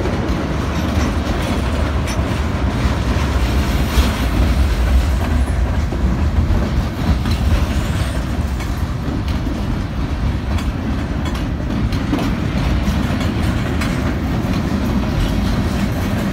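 Freight cars of a long train rolling past close by: a steady low rumble of steel wheels on the rails, with scattered clicks and knocks as the wheels cross the rail joints.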